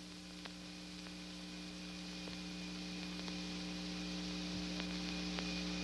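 Steady low hum with hiss and a few faint crackles, slowly growing louder.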